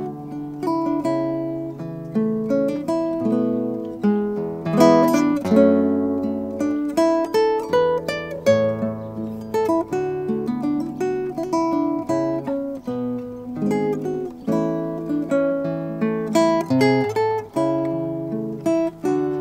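Nylon-string classical guitar played fingerstyle: a melody of plucked single notes over ringing bass notes.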